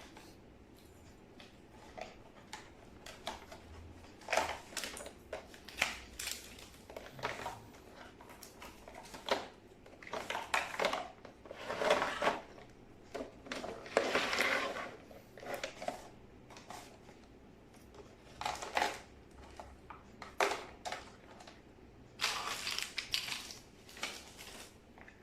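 Irregular handling noises: scattered clicks and clatter, with longer rustling bursts of a second or two separated by short pauses.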